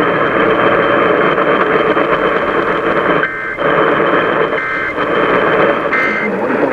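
Radio static hiss from an over-the-air weather radio broadcast, broken three times by short bursts of EAS end-of-message data tones, each under half a second, about a second and a half apart, marking the end of the alert.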